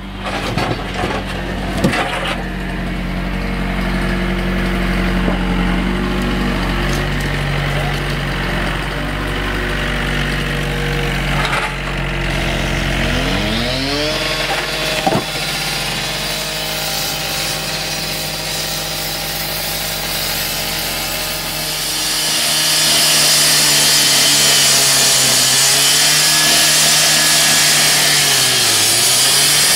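Demolition machinery running steadily, its engine revving up in a rising pitch about halfway through. About two-thirds of the way in, a louder, harsh hissing, rasping noise takes over, like a power saw or tool cutting.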